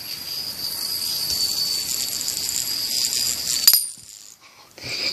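Fidget spinner spinning on its bearing, a steady high-pitched whir, stopped with a sharp click a little under four seconds in.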